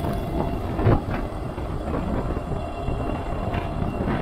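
Riding noise of a Super73 S2 electric bike picked up by a chest-mounted action camera: a steady rumble of wind and tyres, broken by short knocks from bumps, the loudest just before a second in.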